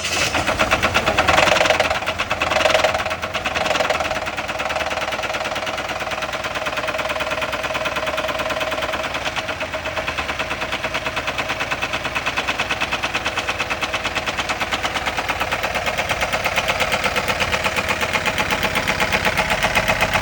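Chevy HHR's four-cylinder engine running with a fast, steady knock from a bad connecting-rod bearing (rod knock), still loud with food products added to the oil. The engine note rises and falls a few times in the first few seconds, then holds steady.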